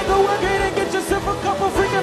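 Live band playing a pop-rock song, with electric guitar and sung vocals over a steady beat.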